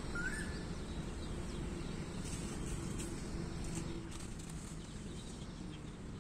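Outdoor farm ambience: a steady low background noise with one short rising bird chirp just after the start and a few faint bird calls.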